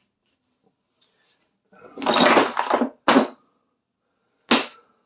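Small metal parts clattering: a rattling clatter about two seconds in, a second shorter one, then a single sharp clink near the end, as the washers come off the side of the suspension trunnion and drop.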